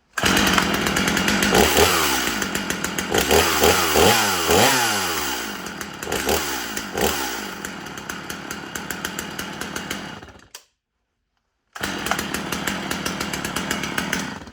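Gasoline chainsaw running and revving up and down several times, settling and fading a little, then stopping abruptly about ten seconds in. After a second of silence it is heard running steadily again until it cuts off sharply.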